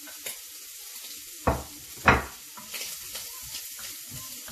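Chopped onion sizzling in hot bacon fat in a frying pan, with two loud knocks about a second and a half and two seconds in, then a wooden spoon stirring and scraping the onion around the pan.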